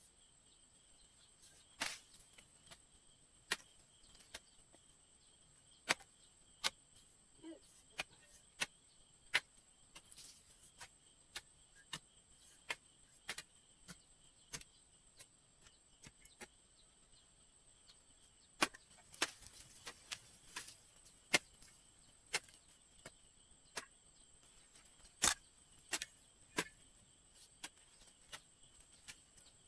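Scattered sharp knocks or taps at irregular intervals, some loud, with a quick run of them about two-thirds of the way through, over a faint steady high-pitched drone.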